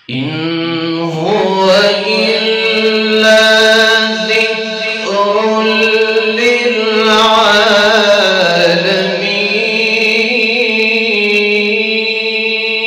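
A young man reciting the Quran in melodic tajwid style into a microphone: one long unbroken chanted phrase, the pitch rising and falling in ornamented turns.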